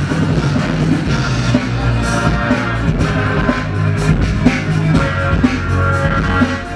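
Loud music for a breakdance battle: a rock-style track with drums and guitar, keeping a steady beat.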